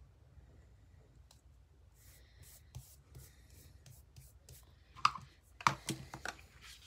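Fingers pressing and smoothing a cardstock strip onto a paper border on a cutting mat: faint paper rubbing and light ticks, with a few louder taps and rustles about five seconds in.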